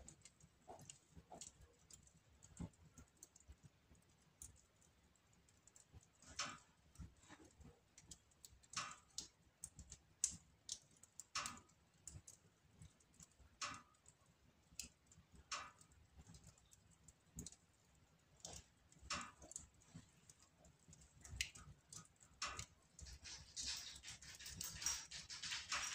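Wood fire in a fireplace crackling faintly, with scattered sharp pops a second or two apart; near the end a soft hiss comes in.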